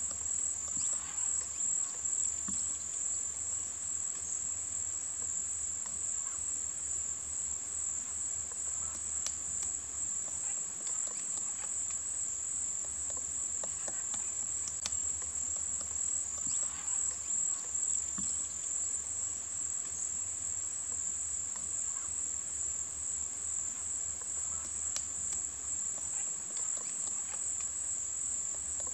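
Steady, unbroken high-pitched chorus of insects such as crickets or cicadas, with a few faint clicks now and then.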